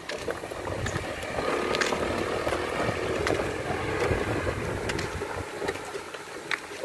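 Low rumble and occasional short rattles of a small hand-pulled wooden cart loaded with horn speakers as it is wheeled along, loudest in the middle.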